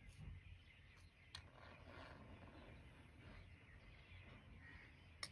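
Faint scratch of a compass pencil drawing an arc on paper, with a few small ticks from the compass, near silence overall.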